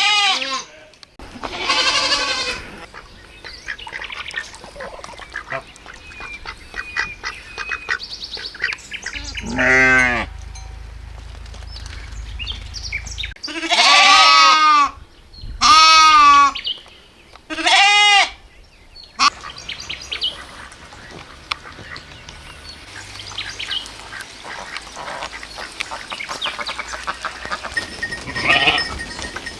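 Livestock bleating: about seven loud, quavering calls, each about a second long, spread through the stretch. Between them are fainter short chirping calls and a low rumble.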